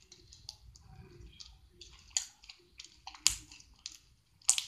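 Bead-filled crunchy slime mixed with Play-Doh being pressed and kneaded by hand against a tile floor, giving a run of short sharp clicks and pops. The three loudest come about a second apart in the second half.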